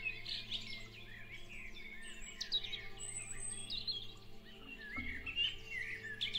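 Several wild songbirds singing and calling at once, a busy mix of short rising and falling phrases, over soft background music of held chords that change about five seconds in.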